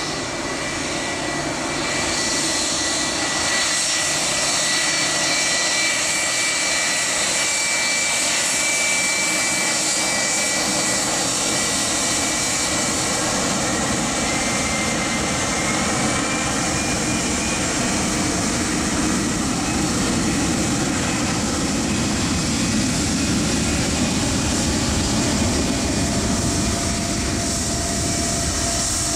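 Boeing 757-200 twin turbofan jet engines at taxi power: a steady rushing noise with a high-pitched whine over it. A lower rumble grows fuller in the second half as the airliner rolls closer.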